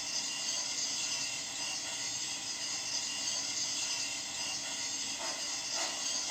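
Proto-Sound 2.0 steam effects from an MTH O-scale Climax geared logging locomotive model: a steady steam hiss. Near the end, a few soft exhaust chuffs begin as the model starts to roll.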